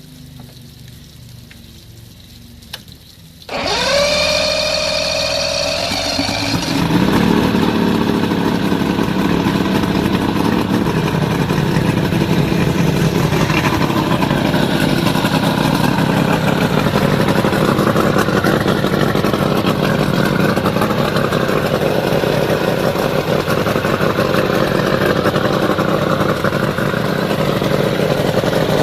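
Mercury 140 hp inline-six two-stroke outboard being started: about three and a half seconds in, the electric starter whines and spins up for about three seconds. The engine then catches and runs steadily.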